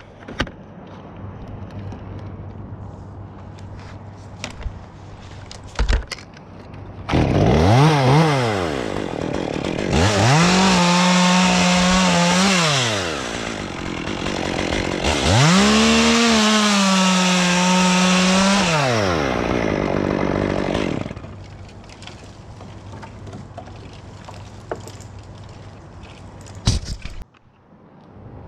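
Chainsaw idling, then run up to full throttle three times: a short blip about seven seconds in, then two held cuts of about three seconds each, dropping back to idle after each. The saw is cutting limbs from an ash tree.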